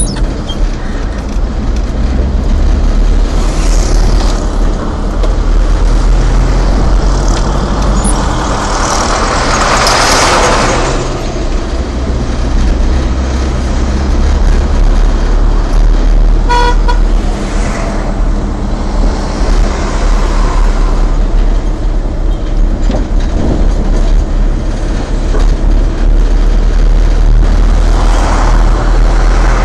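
Car driving through town streets, heard from inside: steady engine and road rumble, a passing vehicle's rush about ten seconds in, and a short horn toot a little past halfway.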